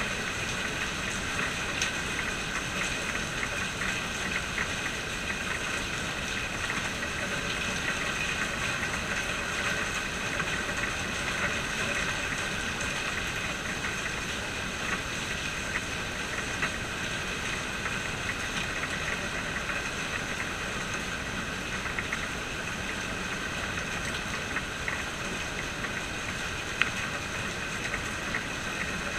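Steady rain falling: a dense, even patter of drops, with one sharper drip near the end.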